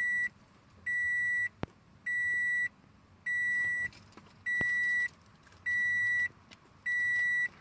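The 2013 Scion FR-S's smart-key warning buzzer beeps steadily, each beep about half a second long, repeating a little more than once every second. It is the car's warning that the key fob has been taken out of the car. There are two faint clicks between the beeps.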